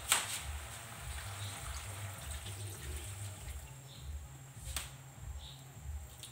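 Pakbet simmering in a stainless wok over a gas burner: soft bubbling with a low pulsing hum underneath. Two sharp clicks stand out, one right at the start and one nearly five seconds in.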